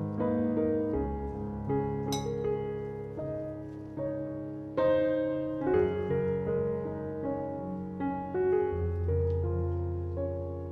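Background piano music: slow, gentle notes and chords, held and changing.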